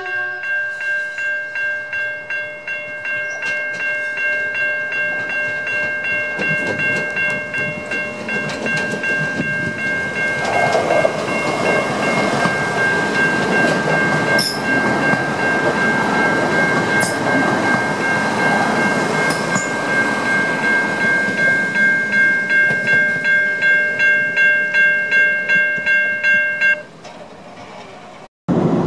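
Level crossing warning bell ringing steadily at about two strokes a second, and cutting off suddenly near the end. Under it, the Prospector diesel railcar passes the crossing, its engine and wheel noise swelling in the middle and then fading.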